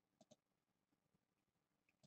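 Near silence, with a faint double click from a computer mouse about a quarter second in.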